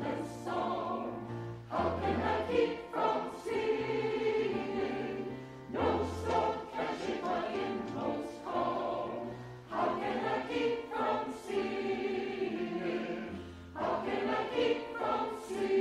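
A choir singing a slow hymn in phrases about four seconds long, over a low sustained bass line.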